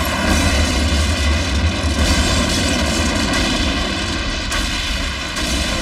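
Animated sound effect of explosions and fire aboard a spaceship: a loud, continuous low rumbling roar with a steady rushing hiss above it.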